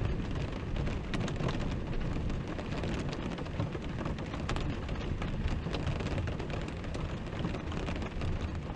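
Rain falling on an RV's roof and windows in a wind storm, heard from inside, with many small drop ticks over a steady low rumble of wind.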